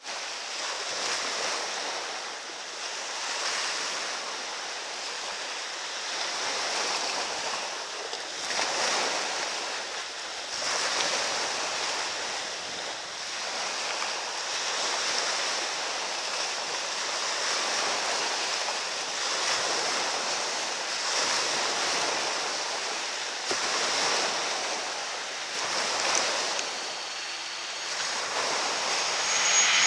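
Cessna Citation CJ1's twin Williams FJ44 turbofans at takeoff power, heard from well down the runway as a rushing roar with a steady high whine on top, wavering in level. It grows louder near the end as the jet lifts off and comes closer.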